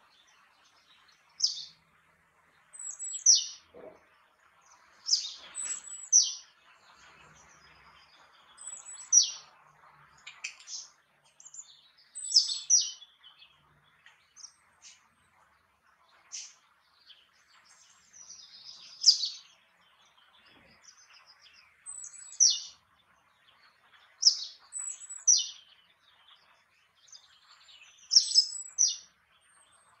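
Great tit calling: short, high, sharply falling notes in groups of two or three, repeated every few seconds, over a faint steady background hiss.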